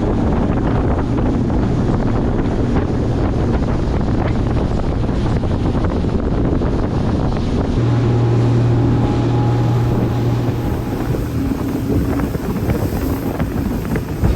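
Tour boat's motor running steadily underway, with wind buffeting the microphone. The engine hum swells a little about eight seconds in and eases off a couple of seconds later.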